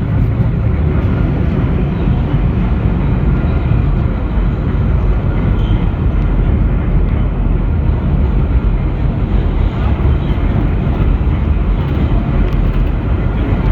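Vintage 1917 IRT Low-Voltage subway car under way, a steady loud rumble of wheels on rail and running gear heard from inside the car.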